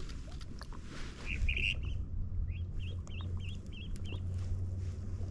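A bird calling: a quick run of about eight short warbling notes, starting a little over a second in and stopping about four seconds in, over a low steady rumble.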